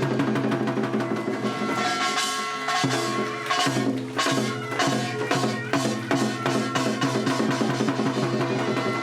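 Music with drums keeping a steady beat under sustained instrumental tones.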